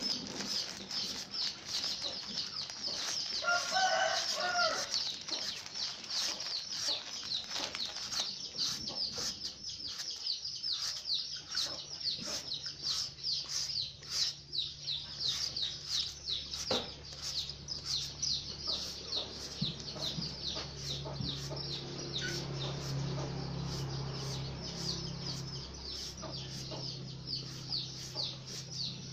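Chickens clucking, with a drawn-out pitched call about four seconds in, over rapid, steadily repeated high chirping. A low steady hum comes in about halfway through.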